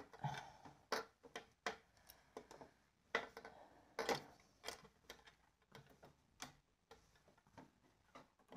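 Faint, irregular clicks and taps from fabric being handled and repositioned at a stopped sewing machine, its needle left down in the fabric.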